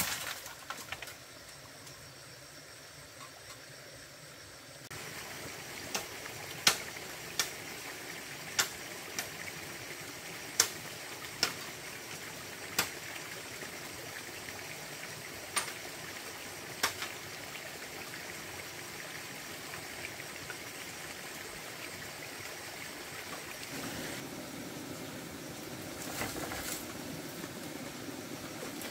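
A series of about ten sharp, irregular knocks over several seconds, over a steady background hiss that steps up a few seconds in.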